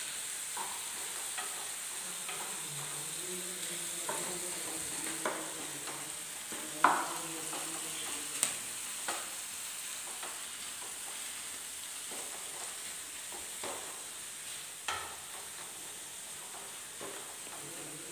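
Spice-coated pieces frying in hot oil in a frying pan: a steady sizzle, with a spatula stirring and scraping through them and a few sharp clicks of the spatula against the pan.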